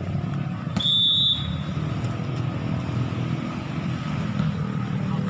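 A referee's whistle blows once, short and shrill, about a second in, signalling the serve in a volleyball match. Under it runs a steady low motor-vehicle rumble.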